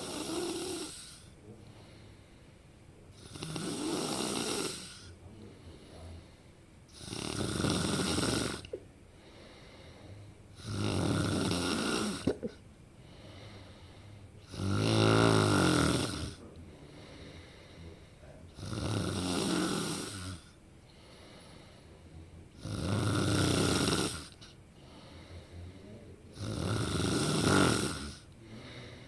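A person snoring with a rough snore about every four seconds, each lasting a second or two. The snore about halfway through is the loudest and rattles.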